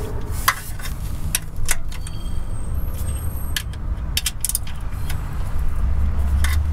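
Ratchet with a 10 mm socket clicking in short, irregular strokes as transmission pan bolts are snugged down against the rubber gasket, with a steady low rumble underneath.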